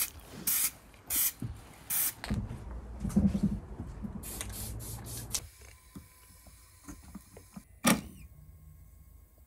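An aerosol spray-paint can sprayed in four short hisses over the first two seconds. Later a faint steady electric whine with light ticks and one sharp click comes from a 3D scanner's turntable spinning.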